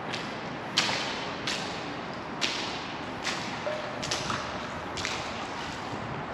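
Footsteps crunching on gravel and loose stones, one sharp step about every 0.8 seconds, over a steady background hiss.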